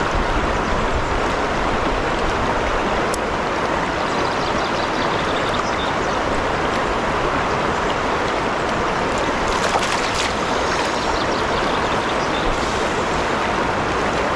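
Fast, shallow river running steadily around a wader, a continuous even rush of water with no let-up.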